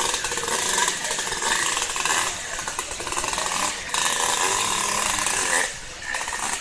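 Enduro dirt bike engine revving hard under load as the bike is forced up a steep muddy bank, in three long bursts with brief drops in between, over rushing river water.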